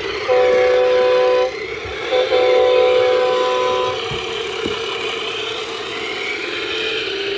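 Max Action toy dump truck driving, with a steady motor whir. Over it a horn sounds twice, a chord of several held pitches: about a second long, starting just after the beginning, then nearly two seconds long from about two seconds in.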